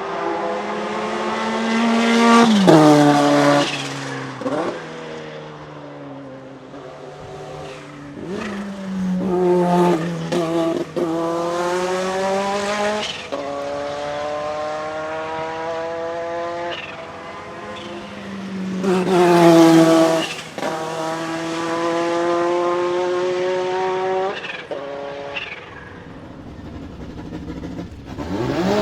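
Renault 5 Maxi Turbo SuperProduction's turbocharged 1.4-litre four-cylinder racing engine accelerating hard through the gears. The pitch climbs and then drops suddenly at each of several upshifts, and the sound is loudest twice: near the start and about two-thirds of the way through.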